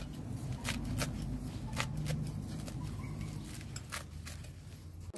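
A small knife slicing fresh leaves held in the hand, a quick series of irregular crisp cuts, with the pieces dropping into a wooden mortar. A low steady hum runs underneath.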